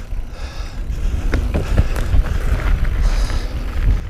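Mountain bike rolling fast over a dirt trail: heavy wind rumble on the bike-mounted camera's microphone, with tyre noise and knocks and rattles of the bike over bumps.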